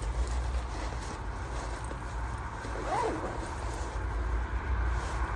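Low, steady rumble of road traffic, with a brief voice-like sound about three seconds in.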